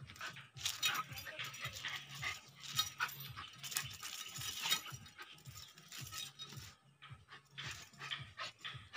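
A small dog growling and snarling in short bursts, with a light metallic clinking of its chain.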